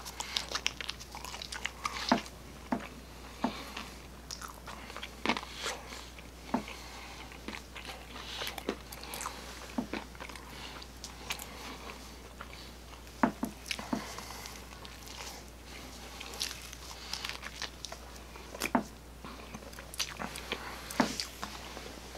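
Close-miked biting and chewing of a pizza slice: irregular crunches of crust and sharp mouth clicks, one every second or so.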